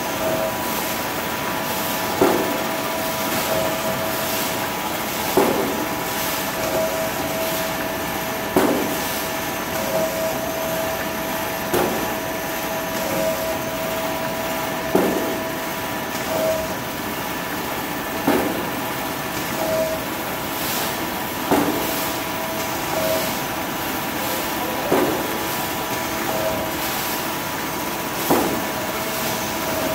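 Paper-roll cutting machine running: a steady mechanical hum and whine, with a short knock about every three seconds as it cycles, nine times in all.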